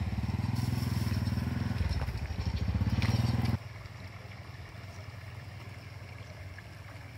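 A small engine running with a low, rapid pulsing beat; its pitch dips a little and then rises again before it cuts off abruptly about three and a half seconds in, leaving only faint outdoor background.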